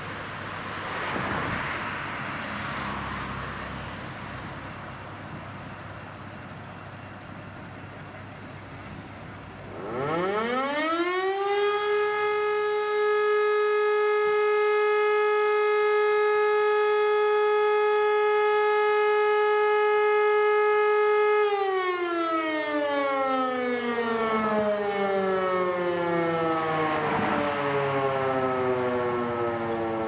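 An E57 electric motor siren winds up to a steady tone about ten seconds in, holds it for about twelve seconds, then winds slowly down; this is one blast of the German fire-alarm siren signal. Before it, fire engines' diesel engines are running.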